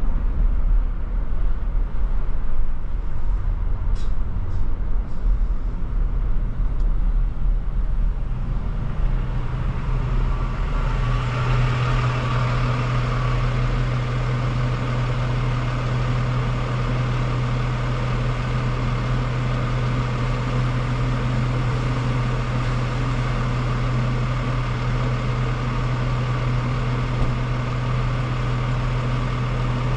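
Car driving: steady road and engine noise, joined about ten seconds in by a louder steady low hum that holds on.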